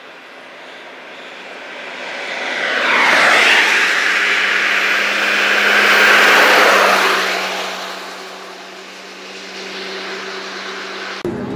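Road traffic passing on a highway: tyre and engine noise swells to a first peak, swells again as a coach bus goes by close, then fades away.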